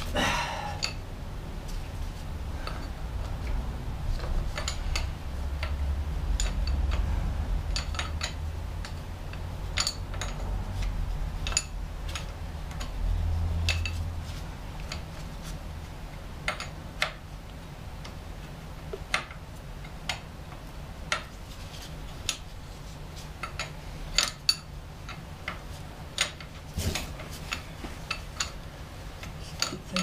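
Irregular metallic clicks and clinks of hand tools on metal, as hydraulic hose fittings are undone from a backhoe's control valve, over a steady low rumble.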